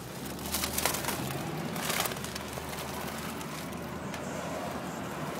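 Steady car-cabin running noise, with the crinkle and rustle of a foil helium balloon being handled close by and a few sharper crackles about one and two seconds in.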